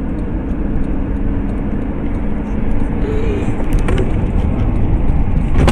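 Steady rumble of engine and tyre noise inside a moving car, slowly growing louder, with a few faint clicks. Right at the end comes a sudden loud bang of an impact.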